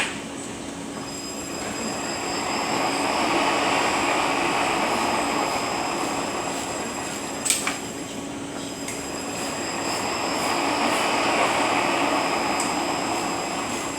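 Rebuilt Eaton Fuller RTLO-18918B 18-speed truck transmission running on a dyno test stand: a steady mechanical whine and rumble that swells and fades twice. A sharp clack comes at the start and again about halfway through.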